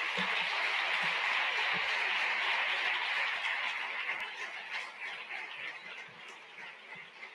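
Audience applauding, full for the first few seconds and then thinning out to scattered claps near the end.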